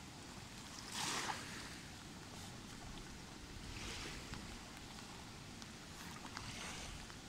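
Small waves lapping onto a sandy shore: three soft swells of wash, the loudest about a second in, over a steady low background rumble.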